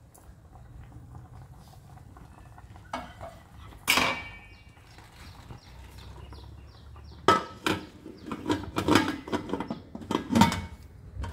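Steel and aluminium cookware clanking. One ringing clink comes about four seconds in. In the last four seconds a run of clanks follows as a lid goes onto the inner steel vessel and the aluminium pressure cooker's lid is fitted and closed.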